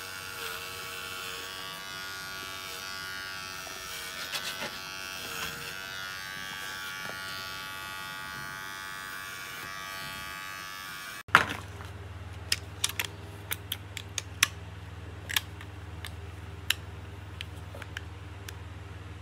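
AJELU cordless electric dog clipper running with a steady buzz while trimming a dog's fur. About eleven seconds in the buzz cuts off suddenly and a low steady hum follows, broken by a series of sharp clicks.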